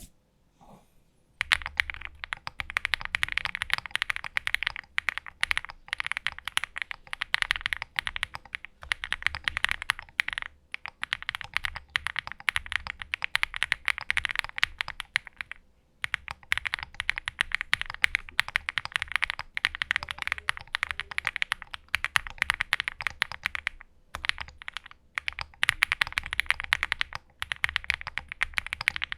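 Owlab Spring mechanical keyboard being typed on quickly and continuously: a dense run of keystroke clacks that starts about a second and a half in and pauses briefly now and then.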